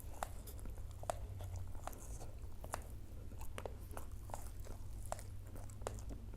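Close-miked chewing of fried snacks and raw chili: soft, irregular crunches and wet mouth clicks, one or two a second, over a steady low hum.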